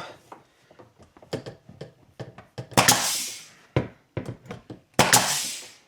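Knocks and taps on wooden trim being fitted along the bottom of a counter, with two louder sharp hits about three and five seconds in, each trailing off over most of a second.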